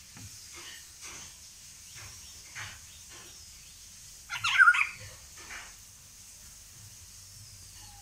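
Indian golden oriole giving one loud, harsh call about halfway through, with softer short notes scattered before and after it.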